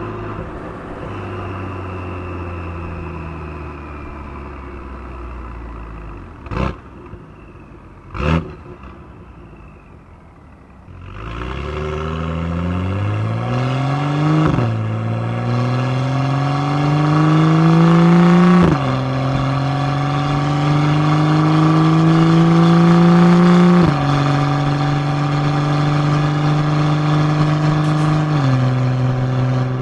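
BMW N55 turbocharged inline-six with a VRSF catted downpipe, heard at its exhaust: it runs low and steady, two sharp knocks come about a second and a half apart, then the car pulls away and the engine note climbs, dropping at each of four upshifts before settling into a steady cruise.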